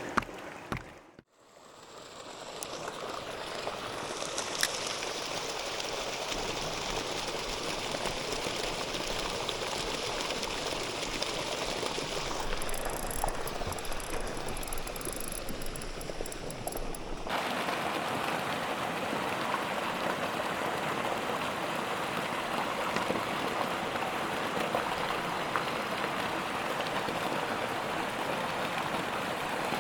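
Steady hiss of running water. It drops out briefly about a second in, fades back up, and abruptly changes tone about two-thirds of the way through.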